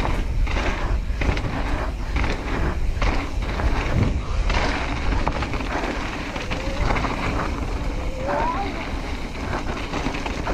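Mountain bike rolling fast over a dusty dirt trail: tyre noise on loose dirt with knocks and rattles from the bike over bumps, and wind on the microphone. A couple of short rising tones sound between about six and eight seconds in.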